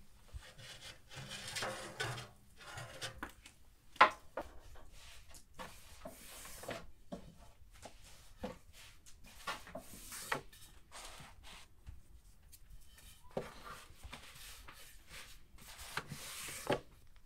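Thin saj-bread dough being worked on a round wooden board by hand and with a long thin wooden rolling pin: repeated rubbing swishes with occasional sharp knocks of the pin on the board, the sharpest about four seconds in.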